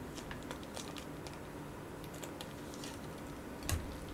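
Faint scattered clicks and crinkles from a plastic sauce sachet being squeezed out over instant noodles. A slightly louder tap comes near the end.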